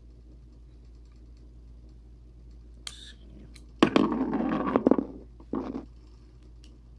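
Handling noise from Glock pistol parts: a sharp click, then about a second of loud rattling and scraping, and a shorter rattle soon after.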